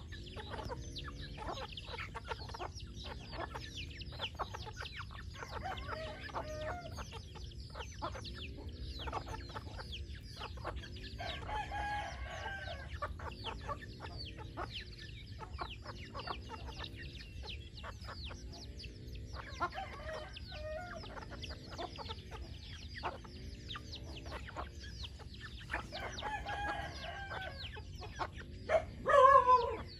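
A flock of chickens clucking continuously, with a rooster crowing several times; the loudest crow comes near the end.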